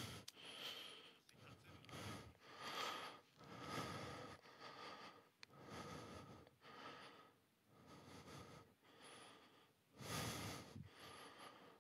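A man breathing heavily and rhythmically close to a phone's microphone, about one breath a second, faint.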